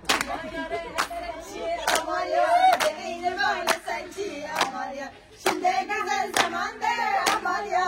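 A group of voices singing, with hand claps keeping a steady beat of roughly one clap a second.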